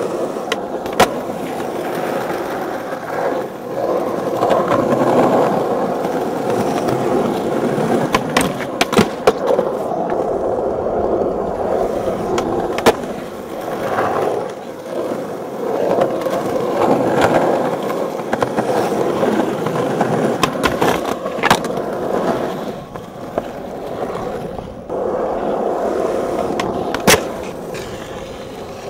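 Skateboard wheels rolling over rough asphalt with a steady noise. Several sharp clacks of the board hitting the pavement break through it, the loudest about 13 seconds in and again near the end.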